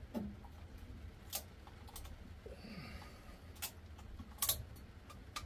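A ratchet tie-down strap being worked tight around a pair of batteries: scattered, irregular clicks from the ratchet buckle and strap hardware, several over a few seconds, over a low steady hum.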